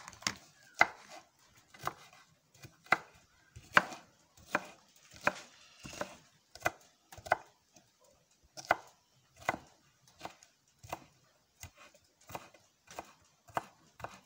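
A knife chopping vegetables into small pieces, with a steady run of sharp knocks about one or two a second.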